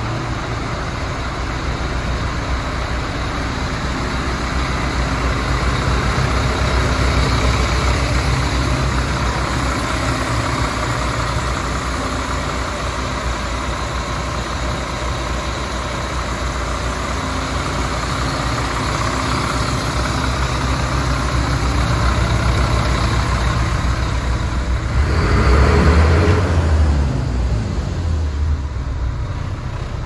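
DAF CF75 truck's six-cylinder diesel engine idling steadily, briefly louder a few seconds before the end.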